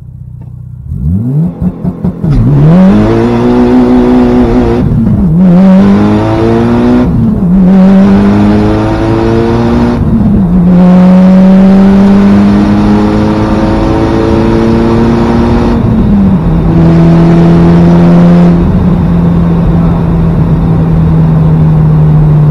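Mitsubishi Lancer Evolution VIII's turbocharged four-cylinder engine, with an upgraded turbo and exhaust, heard from inside the car under hard acceleration. The revs climb and drop back through several gear changes, then hold a steady high note.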